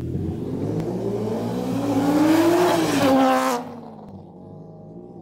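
Mitsubishi Lancer Evolution IX's turbocharged 2.0-litre four-cylinder engine accelerating hard, its pitch climbing for nearly three seconds and then falling. About three and a half seconds in, the sound turns suddenly muffled and quieter.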